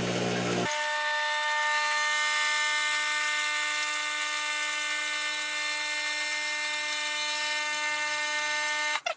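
MiiCoffee Apex espresso machine's pump running as hot water flows from the group head into a metal bowl: a steady whine whose sound changes a moment in, then cuts off abruptly near the end.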